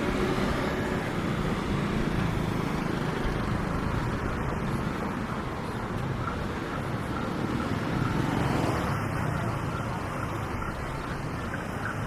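Steady street traffic noise: a low rumble of vehicles passing, swelling slightly about eight seconds in.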